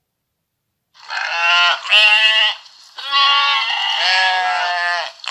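Sheep bleating: two short bleats, then one long wavering bleat.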